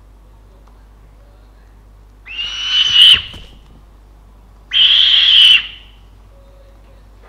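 Owl giving two harsh, raspy screeches, each about a second long and a couple of seconds apart.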